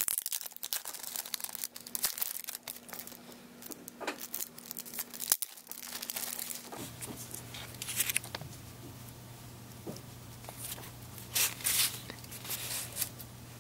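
Clear plastic wrapping being pulled and torn off a cardboard notebook box, crinkling in irregular bursts.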